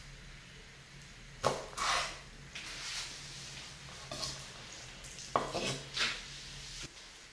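Kitchen knife cutting through slices of braised pork on a wooden cutting board: several sharp knocks and short scrapes of the blade against the board, spaced irregularly, then the blade sliding under the cut pieces to lift them near the end.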